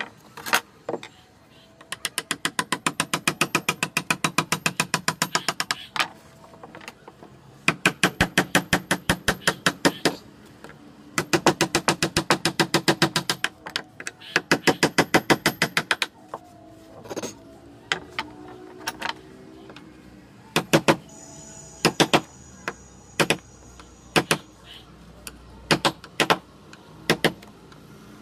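Claw hammer tapping a chisel's plastic handle to cut into teak: fast runs of light blows, about six a second, in four bursts of two to four seconds each, then slower single strikes in the last third.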